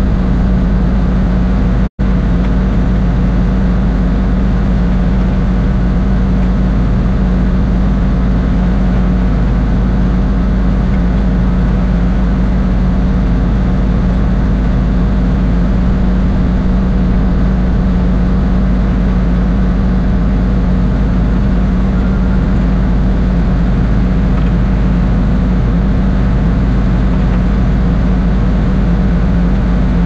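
A steady, unchanging engine drone with a strong low hum, broken once by a momentary dropout about two seconds in.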